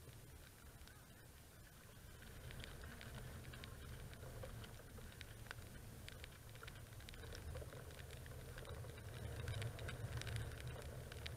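Raindrops ticking irregularly on the camera housing, over a low rumble of wind on the microphone that gusts stronger near the end.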